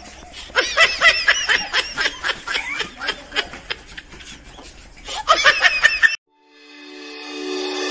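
A person laughing in quick, high-pitched giggles, in two runs. It cuts off suddenly about six seconds in, and music fades in near the end.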